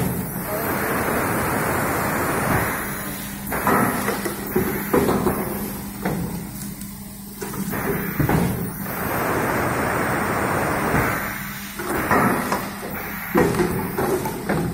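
PET blow moulding machine cycling: long hisses of compressed air, each lasting one to three seconds, broken by several sharp clunks of the pneumatic mould clamp, over a steady low hum.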